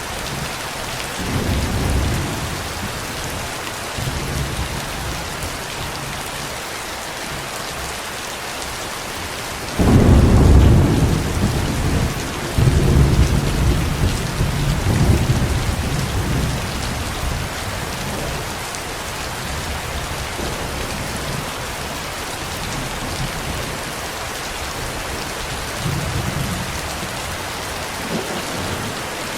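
Steady heavy rain with rolling thunder: a loud thunder crack about ten seconds in that rumbles on for several seconds, and fainter low rumbles near the start and near the end.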